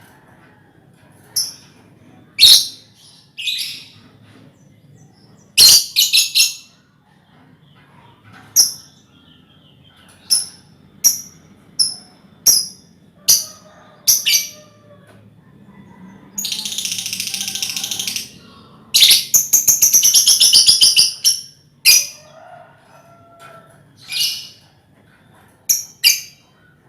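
A colony of young lovebirds calling: short, sharp, shrill chirps scattered throughout, with two long, rapid chattering trills (ngekek) running a couple of seconds each, about two-thirds of the way in.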